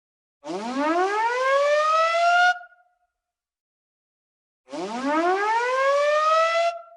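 Whooping alarm siren: two rising wails, each climbing in pitch for about two seconds and cutting off sharply, about two seconds apart.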